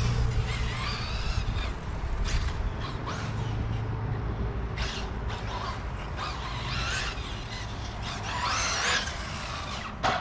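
Small glow-fuel engine of a 1/8-scale nitro RC buggy revving up and down, heard as several quick rising and falling whines, over a steady low rumble.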